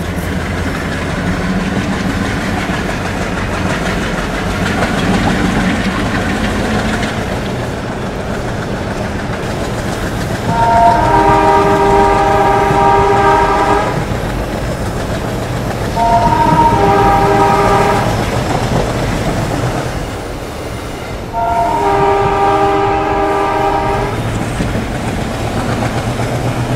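Passenger train hauled by an ALCO diesel locomotive running steadily along the track. The locomotive's multi-tone horn sounds three blasts, the first about ten seconds in: one long, one shorter and one medium.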